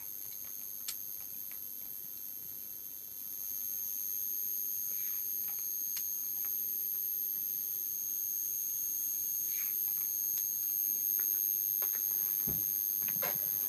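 Steady high-pitched whine of the high-voltage supply driving a glow discharge in a syringe-evacuated test tube. Small plastic clicks and taps come from the syringe and tubing being handled, with a low thump near the end.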